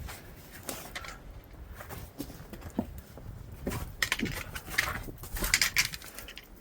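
Irregular scuffs, scrapes and rustles of a hiker with a backpack working through a narrow rock squeeze, growing busier about four seconds in.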